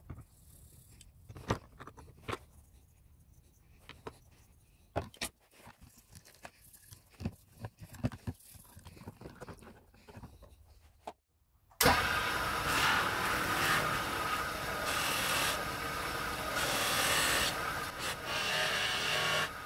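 Faint scattered taps and clicks as brass parts are scrubbed with a toothbrush and rinsed. About twelve seconds in, a cloth buffing wheel on a polishing motor cuts in loud and runs steadily while a brass ball is pressed against it for polishing.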